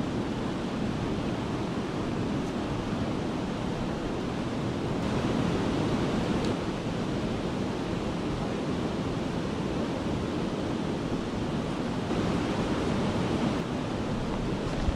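Steady rush of white water pouring over a river weir and churning through the weir pool below.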